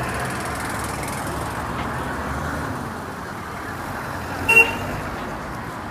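Steady street traffic of passing cars and motorcycles, with a short, sharp horn toot about four and a half seconds in.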